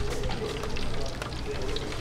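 Busy market food-stall ambience: faint indistinct voices and scattered small clicks and clatter over a steady low hum.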